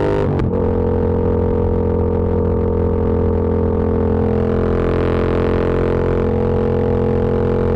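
Yamaha MT-07's 689 cc parallel-twin engine and exhaust running under way. The note breaks briefly about half a second in, then holds a steady drone.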